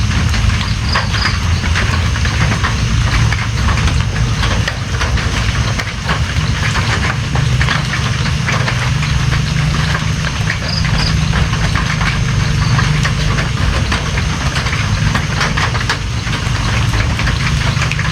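Steady rain, with many fine drop ticks over a continuous hiss and a deep steady rumble underneath. A short high double chirp comes about a second in and again about ten seconds later.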